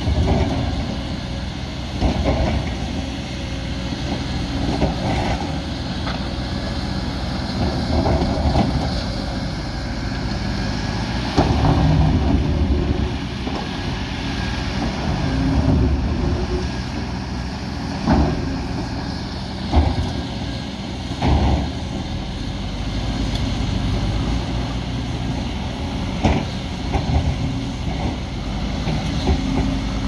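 JCB backhoe loader's diesel engine running under load, its pitch rising and falling as the machine works, with several sharp clanks and thuds from the bucket and earth.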